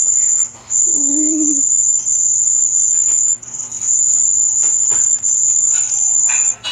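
Stacked sound effects dominated by a steady, high-pitched electronic whine that breaks off briefly three times. A short warbling tone comes about a second in, with scattered clicks throughout.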